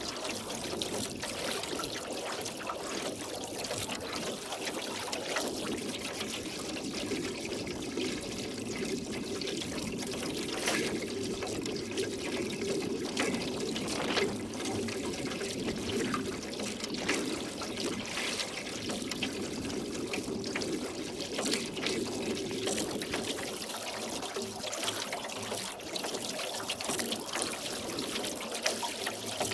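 Oars dipping into lake water while rowing a boat: continuous trickling and splashing, with many small drips and splashes.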